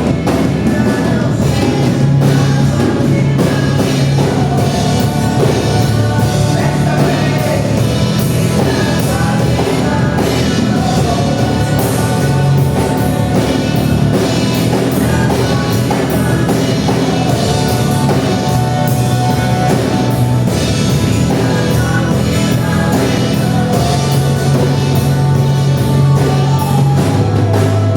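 Live gospel worship music: a band with drums and bass playing under singing.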